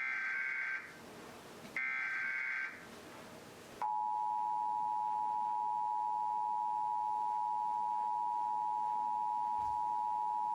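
Emergency Alert System broadcast signal: two roughly one-second bursts of screechy digital data (the last repeats of the SAME alert header), then, about four seconds in, the EAS attention signal, a steady loud two-tone beep at 853 and 960 Hz held without break. Together they announce the start of an emergency alert, here the nationwide test.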